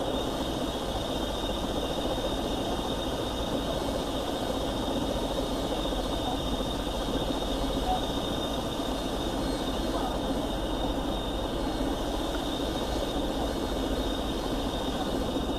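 Eurocopter EC120 helicopter's turbine and rotor running on the ground, a steady hum with a constant high whine, heard from inside the cockpit.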